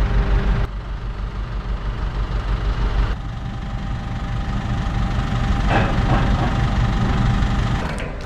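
Heavy machinery engine running steadily with a low pulsing rumble, with two abrupt changes in the first three seconds.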